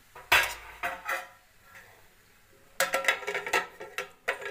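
Metal clanks and scrapes of a spatula against an aluminium kadai. One sharp knock comes about half a second in and two more around a second, with a faint metallic ring after them. Near the end there is a run of clattering as the pan is stirred and its aluminium lid is brought over it.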